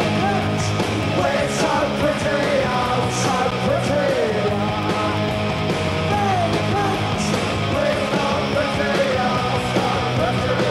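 Punk rock band playing live at full volume: distorted electric guitars, bass and drums with cymbal crashes.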